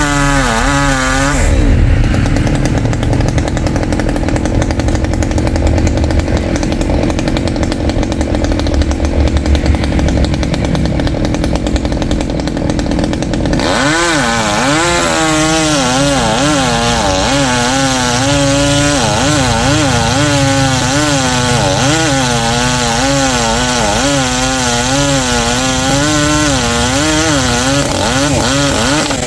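Two-stroke chainsaw cutting into the trunk of a large rain tree. For roughly the first half it runs lower and rougher under heavy load. About halfway through it rises to a higher pitch that wavers, dipping and recovering as the cut goes on, and the pitch falls away at the very end.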